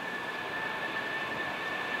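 Boeing 757-300 jet engines running at low taxi thrust: a steady rushing noise with a high, steady fan whine, slowly growing louder.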